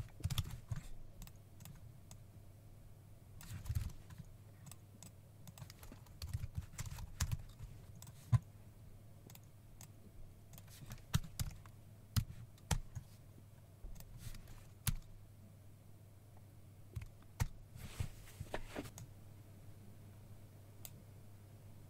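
Computer keyboard typing and mouse clicks: scattered keystrokes in short runs, over a faint steady low hum.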